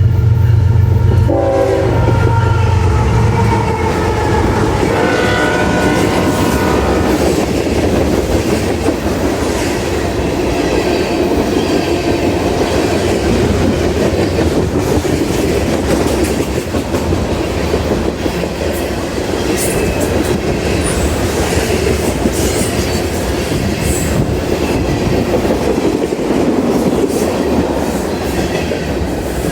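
CSX freight train passing at speed: the locomotive's diesel drone and air horn, its pitch dropping as the locomotive goes by, a second horn blast a few seconds later, then the steady rumble and clickety-clack of the freight cars on the rails, with brief high wheel squeals partway through.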